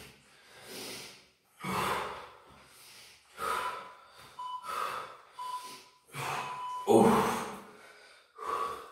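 A man breathing hard through strain: about eight sharp, noisy exhalations and gasps, the loudest about seven seconds in. Faint short beeps come about once a second in the middle.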